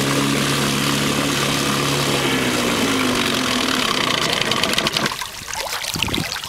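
1960s Johnson 5 hp two-stroke outboard motor running steadily, then slowing with a falling pitch after about two and a half seconds and stopping about five seconds in. A few clicks and knocks follow.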